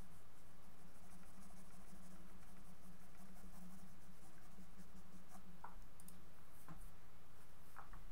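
Pencil scratching on drawing paper in quick crisscross shading strokes, over a steady low electrical hum, with a few light ticks in the second half.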